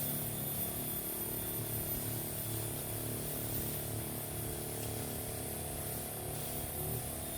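Small motor of a crop sprayer running steadily.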